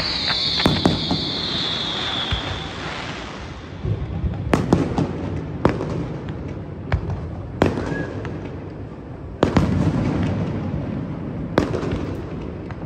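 Fireworks display: a barge-mounted fountain firework hissing and fading out over the first few seconds, then aerial shells bursting with about six sharp bangs a second or two apart over a continuous low rumble.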